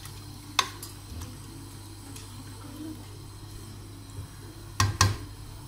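Rice and stock simmering in an aluminium pot while a wooden spoon stirs it, over a steady low hum. There is a sharp knock about half a second in, and two loud knocks close together near the end as the wooden spoon strikes the pot.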